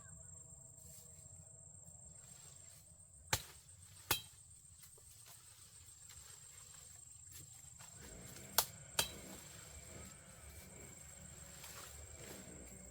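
Four sharp knocks in two pairs, each pair a little under a second apart and several seconds between the pairs, over a steady high insect trill.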